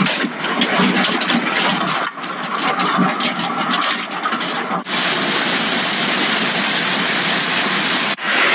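Hailstones pelting down in a storm: a dense patter of sharp impacts, then after a cut a steady, even roar of heavy hail and rain.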